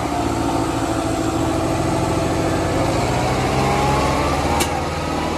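Diesel tractor engines of a Kubota MU5501 and a New Holland 5501 running hard under full load as they pull against each other on a chain in a tug-of-war. The engine note is steady and rises slightly in the second half.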